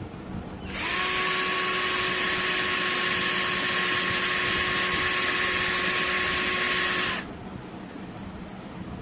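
Cheap 12 V cordless drill running steadily at one speed with a constant whine, starting under a second in and stopping abruptly about two seconds before the end.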